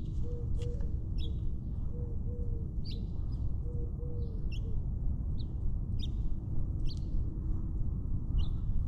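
Small birds chirping in short high chirps, repeating every half second to a second, with a lower two-note call repeated through the first half. A constant low rumble of rubbing and movement from the cat's collar camera runs underneath.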